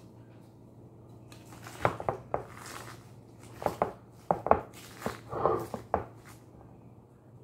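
Kitchen scraps being handled and dropped into a plastic bin by hand: a string of sharp knocks and short rustles from about two to six seconds in, over a low steady hum.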